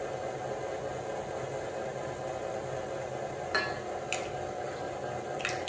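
Stand mixer running steadily at low speed, beating butter and sugar in its metal bowl. Three light clicks of eggshell against a small glass dish come about three and a half, four and five and a half seconds in.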